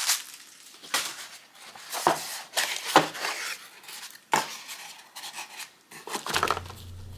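Cardboard box being opened and its contents handled: scattered light knocks, taps and scrapes of cardboard flaps and packed cables.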